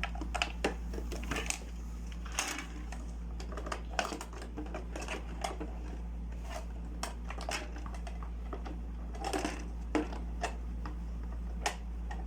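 Small toy pieces being handled, giving irregular light clicks and taps over a steady low hum.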